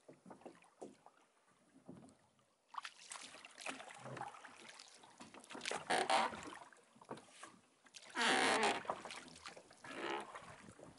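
Water slapping and splashing around a small rowboat in uneven surges, the loudest a rush about eight seconds in.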